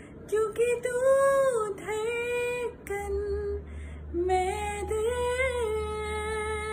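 Woman singing a drawn-out, wordless phrase of a Hindi film song, with long notes that glide and waver up and down, settling into a steady held note near the end.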